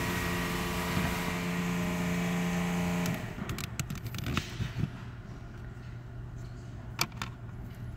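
A steady mechanical hum inside a car cabin, with a clear pitch, cuts off suddenly about three seconds in and leaves a fainter low hum. A few light clicks follow as the plastic cabin-filter housing cover is handled.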